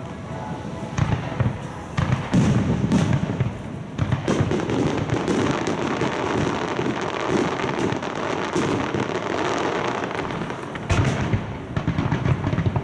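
Fireworks bursting overhead. Single loud bangs come about a second and two seconds in. From about four seconds a dense run of rapid bangs and crackling follows, and heavy bangs return near the end.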